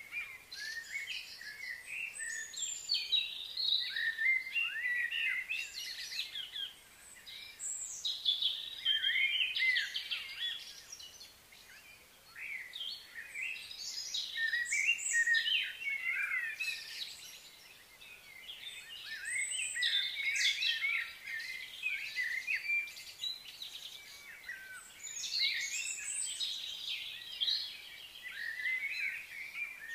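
Several birds chirping and calling in overlapping bouts of quick, high notes, with short lulls between bouts.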